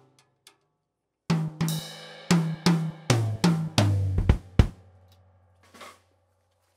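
Acoustic drum kit played solo. After a short pause comes a fill of about nine strokes across the drums, falling in pitch toward the floor tom, with a cymbal ringing near the start. The fill ends on two deep bass-drum hits, and a single light stroke follows.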